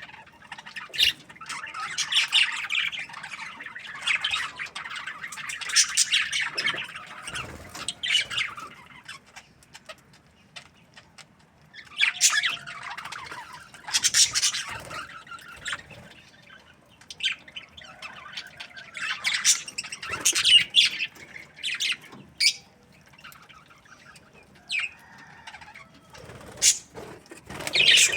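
Budgerigars chirping and chattering in bouts of several seconds, with short quieter pauses between them.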